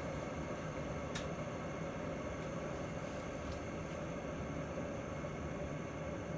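Electric kettle heating water: a steady rumbling hiss, with a faint tick about a second in.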